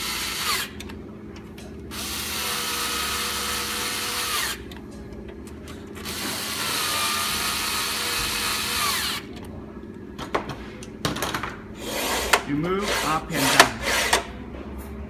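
Cordless electric screwdriver driving screws into the printer's top frame in three runs of a few seconds each, its motor whining steadily, as the screws of the upper locking system that holds the Z-axis shafts are tightened. Near the end come several sharp clicks and knocks of metal parts being handled.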